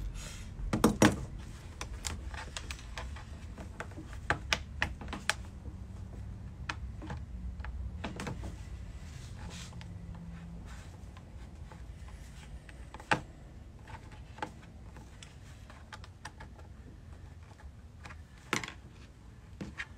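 Irregular sharp plastic clicks and taps as hands and pliers work the retaining clips out of a car's plastic rear package tray, loudest in a quick cluster about a second in, over a low steady room hum.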